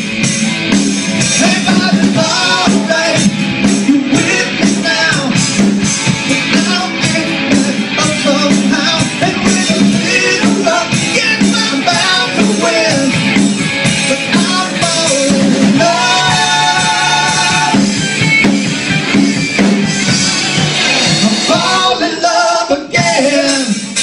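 A live rock-style song with singing over guitar and drums, loud and continuous, with one long held sung note about two-thirds of the way through.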